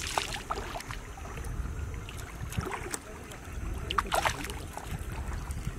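Wind rumbling on the microphone, with a few short splashes of water, the loudest about four seconds in.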